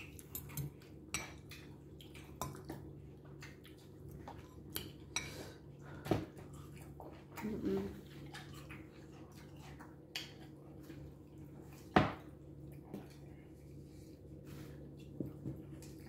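Metal fork clinking and scraping against a glass bowl in scattered, irregular taps. The sharpest, loudest clink comes about twelve seconds in.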